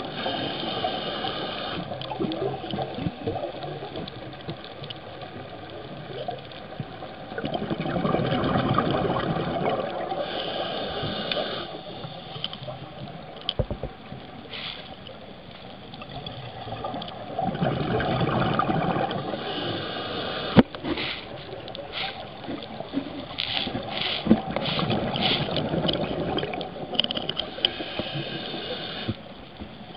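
A scuba diver breathing underwater through a regulator. Each breath brings a hiss and then a gush of exhaust bubbles, repeating about every eight or nine seconds. A few sharp clicks come in the second half.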